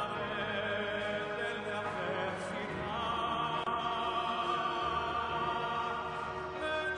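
Operatic music: a singing voice with wavering vibrato over an orchestra, with a new sustained phrase entering about three seconds in.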